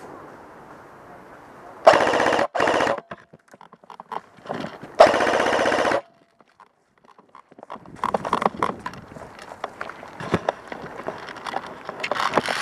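Airsoft rifle firing on full auto: two short bursts close together about two seconds in, then a longer burst of about a second about five seconds in, each a fast, even rattle. Later, irregular rustling and scuffing of movement.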